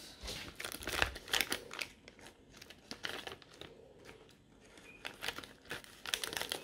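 Clear plastic parts bag crinkling as it is handled, in crackly bursts, busiest at the start and again near the end, sparser in the middle.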